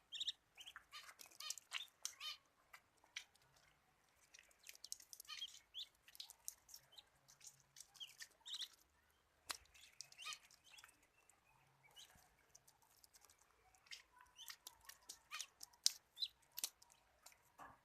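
Muscovy ducklings peeping: many short, high chirps scattered throughout, with a few sharp clicks in between.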